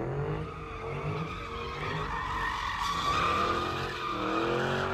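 Car tires squealing in a sustained skid through the whole stretch, with the engine running at high revs underneath, its pitch rising and falling.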